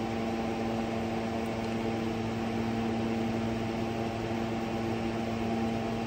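Steady background machine hum: a constant drone of several even tones over a layer of hiss, with no change in pitch or level.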